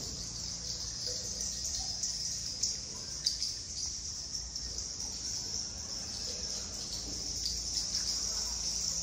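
Insects buzzing in a steady high-pitched drone, with short chirps scattered through it.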